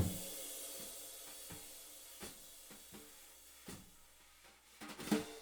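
A riveted jazz cymbal struck with brushes: one loud hit at the start, then a long sizzling wash from the rivets that slowly fades, with a few light taps. A cluster of hits comes near the end.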